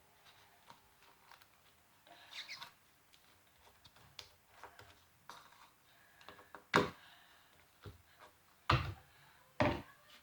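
Slime being mixed and handled in a container: quiet scattered clicks and sticky handling sounds, with three sharper knocks or pops in the second half. The mix holds too much baking soda and has gone lumpy and egg-like.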